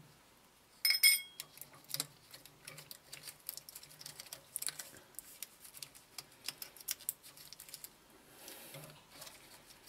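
Small clicks and knocks of old wiring and crimped connectors being worked loose and pulled from the lathe motor's terminal box, with a brief ringing metallic clatter about a second in.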